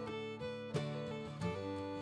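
Background music: strummed acoustic guitar with a light country-bluegrass feel.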